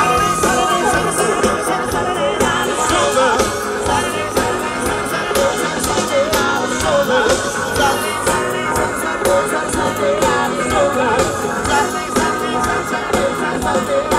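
Live band playing a song, with a drum kit keeping a steady beat under a singing voice.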